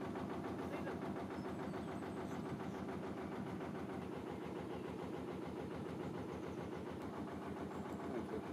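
Narrowboat's inboard engine running steadily while cruising, with an even, low beat.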